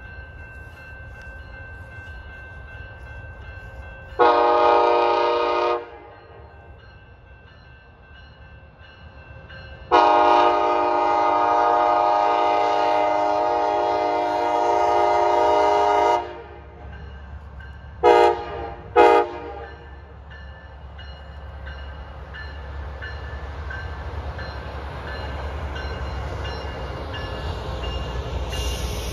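Canadian Pacific Holiday Train's diesel locomotive sounding its multi-chime air horn, two long blasts then two short ones. The low rumble of the train then builds as it approaches and its passenger cars pass.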